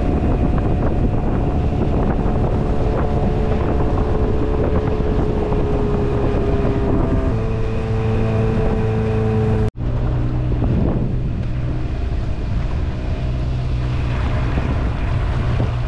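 Boat motor running steadily, with wind buffeting the microphone. Its pitch shifts about seven seconds in, and the sound breaks off for an instant about ten seconds in.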